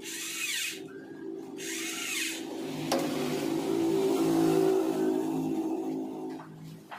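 Two short rasping scrapes, then a motor that runs for a few seconds, swelling and then fading.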